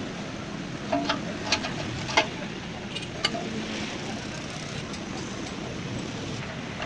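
A handful of sharp, short metallic taps with a brief ring, bunched in the first half, over a steady background noise.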